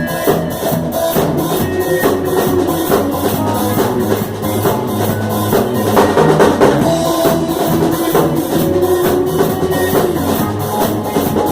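Live band playing an instrumental passage of a worship song: a drum kit keeping a steady beat under bass and a held melodic line, with no singing.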